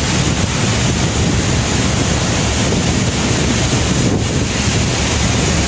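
Steady, loud rushing noise that barely changes, with a brief dip about four seconds in.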